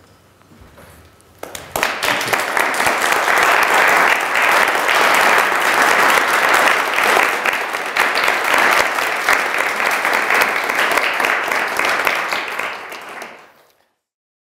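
A small audience of a few dozen people applauding. The clapping starts about a second and a half in, holds steady, and fades out near the end.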